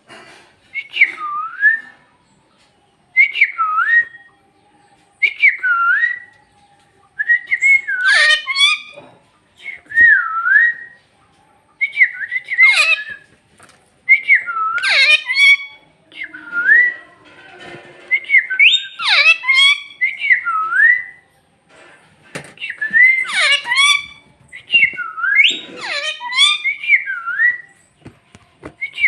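Parrot whistling over and over: short phrases about every two seconds, each dipping in pitch and sliding back up, some mixed with harsher, scratchy calls.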